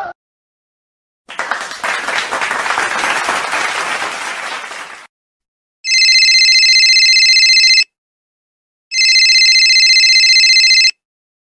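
About four seconds of applause, then a telephone ringing twice, each ring a steady, high, two-second trill with about a second's gap between.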